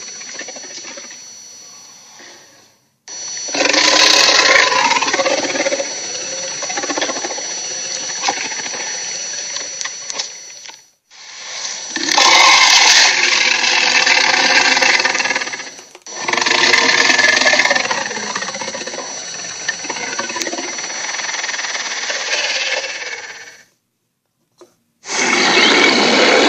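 A run of cartoon sea-monster sound effects: four separate loud, rough, growling noises, each a few seconds long. Each one cuts off abruptly, with a brief silence before the next.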